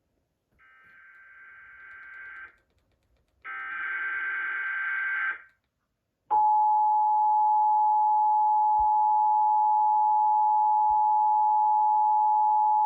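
Emergency Alert System broadcast tones. Two bursts of the harsh, buzzing SAME header data tones come first, then, about six seconds in, the loud steady EAS two-tone attention signal starts and holds.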